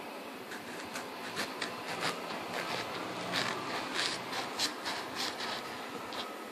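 A knife cutting a lemon in half, with a run of light, irregular clicks and scrapes as the blade works through it.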